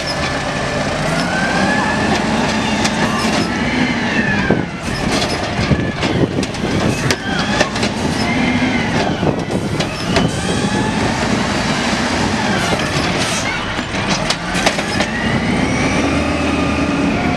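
Automated side-loader garbage truck emptying curbside carts: the engine and hydraulics rev up and settle back with each lift of the arm, about four swells, with sharp clanks as the carts are shaken out into the hopper and set back down.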